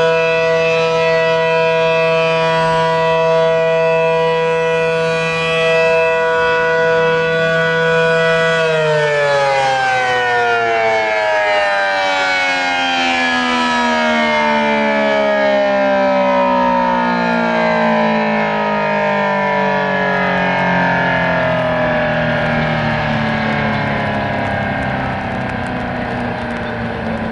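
ACA P-10 siren, a three-phase Allertor unit with a P-10 intake and horn, sounding a steady Alert tone, then switched off about eight seconds in and winding down, its pitch sliding slowly lower for the rest of the time.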